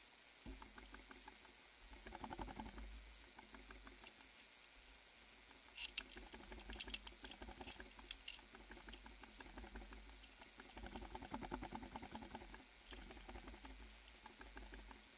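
Faint rustling with soft, scattered ticks, and a short run of sharper clicks about six to eight seconds in.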